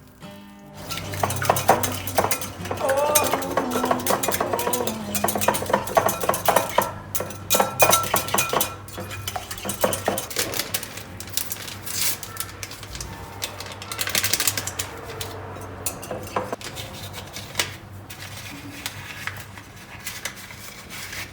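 Cutlery clinking and scraping against dishes in a run of quick clicks, busiest in the first half and thinning out after.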